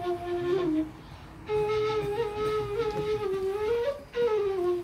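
A solo melody in a flute-like tone: long held notes that bend slightly up and down, in three phrases with a short break about a second in and another near four seconds.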